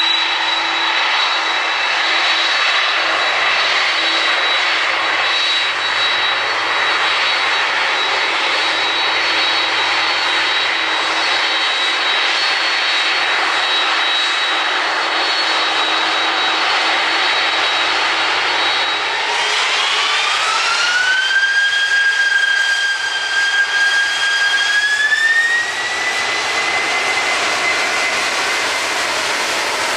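Jet airliner engines running steadily with a high whine, then about two-thirds of the way through the whine rises in pitch, holds, and rises again as the engines spool up to take-off thrust.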